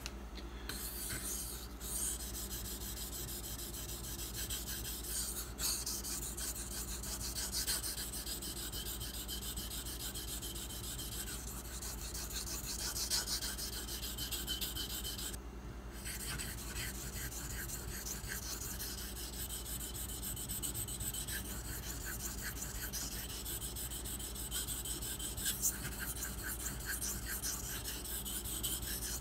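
Steady back-and-forth scraping of a 154CM steel knife blade being ground on a whetstone, with a few short pauses, the longest about halfway through. The blade is being thinned behind the edge to blend the bevel, not yet sharpened at the apex.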